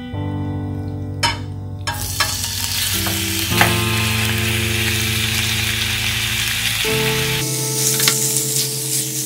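Raw shrimp tipped into hot oil in a stainless steel frying pan, bursting into a loud sizzle about two seconds in and frying steadily, with a few knocks as they land and are moved with a spatula.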